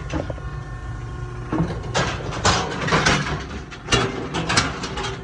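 Steel cattle chute gate and bars banging and rattling, a rapid run of metal knocks starting about a second and a half in, as a bull is let out of the chute.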